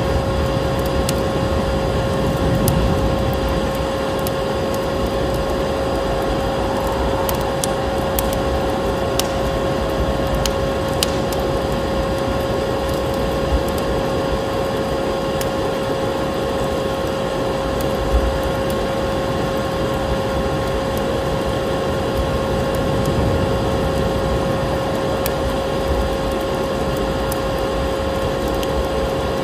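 Vacuum cleaner motor running steadily with a constant whine, over a crackling wood fire with scattered sharp pops.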